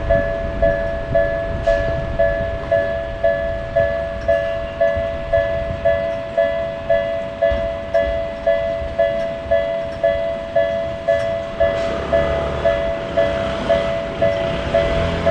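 Japanese level-crossing alarm ringing its electronic two-tone bell, about two and a half dings a second. From about three quarters of the way in, the rumble of an approaching train rises under the bell.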